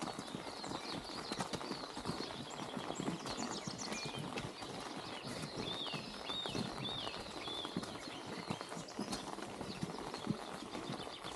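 Continuous irregular clatter of knocks and taps, with a few short high chirps about halfway through.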